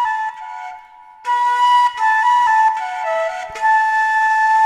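A danso, the Korean vertical bamboo flute, playing a slow melody of held notes, pausing briefly about a second in.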